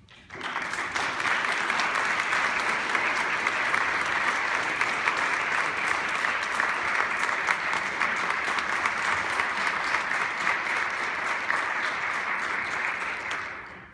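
Audience applauding, a dense patter of clapping that swells in about half a second in and dies away near the end.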